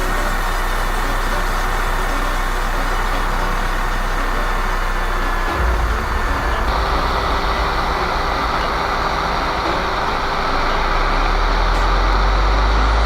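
An electric drill motor driving a homemade spindle sander, running as a steady mechanical noise. A deeper rumble comes in about five and a half seconds in and builds toward the end.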